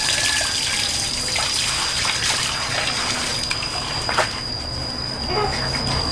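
Water running and trickling, with a thin steady high-pitched tone above it.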